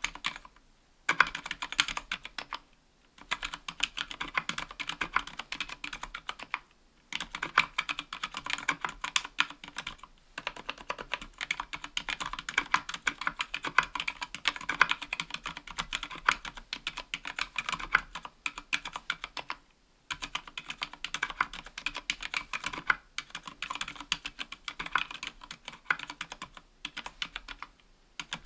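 Steady typing on a 60% aluminium-cased mechanical keyboard with Gateron Silent Black Ink linear switches (dampened silent switches) under GMK keycaps: a fast run of soft keystroke clacks, broken by short pauses about a second in, around three seconds in, near seven seconds, and a few more times later.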